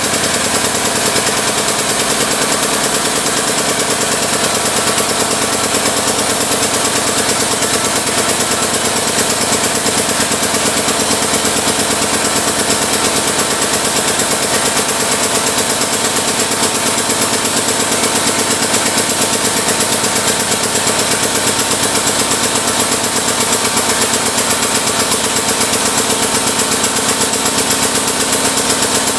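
Harbor Freight 8-ton air-over-hydraulic ram's air-driven pump running with a rapid, even pulsing as it extends the ram and pushes the tubing bender's arm around.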